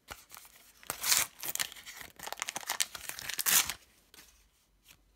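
A paper sticker booster packet torn open by hand, with tearing and crinkling for nearly four seconds, loudest about a second in and again near the end of the tearing, before it dies away.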